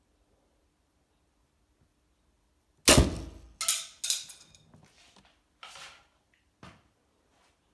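A 175 lb recurve crossbow shot: one loud, sharp crack about three seconds in, the string's release and the bolt's hit on the arrow-stop mat at 5 m landing almost together. It is followed by a few quieter knocks over the next few seconds.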